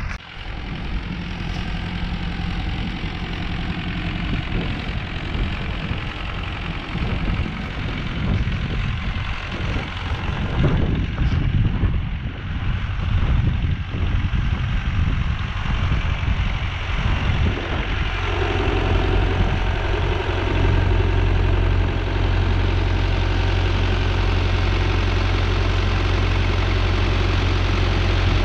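Renault 651 tractor's diesel engine running as it tows a field roller, coming closer and growing louder. From about two-thirds of the way in its steady drone fills the sound.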